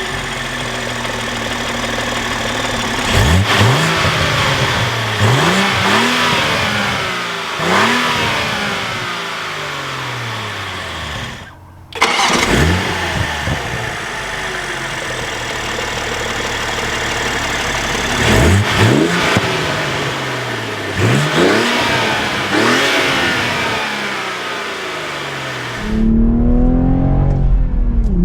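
Toyota A90 Supra 3.0's turbocharged B58 inline-six accelerating hard through the gears of its six-speed manual, the revs climbing and falling back again and again at each shift. There is a brief dropout a little before halfway. Near the end it changes to a steadier, duller engine note.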